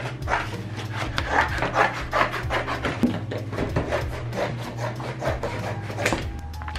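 Scissors cutting through thin cardboard from frozen-pizza boxes: a quick, irregular run of crisp snips, several a second, over a steady low hum.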